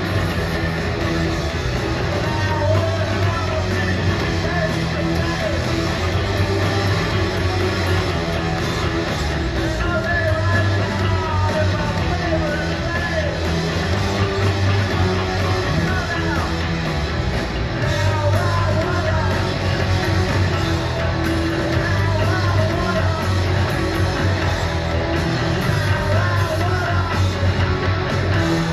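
Live rock band playing loudly in a large hall: distorted electric guitars, bass and drums, with a voice singing over them.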